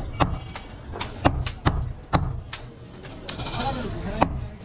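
Heavy butcher's cleaver chopping goat meat and bone on a wooden chopping block: a run of sharp chops, roughly two a second.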